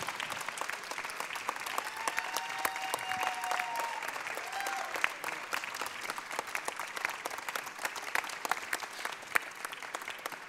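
Audience applauding steadily, with a faint held tone heard over the clapping for a few seconds.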